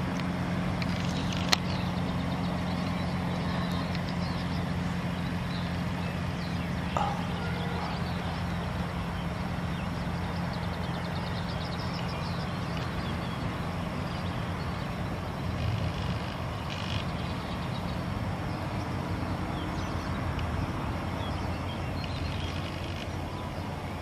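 A steady low engine hum, with faint high bird chirps scattered through and a single sharp click about a second and a half in.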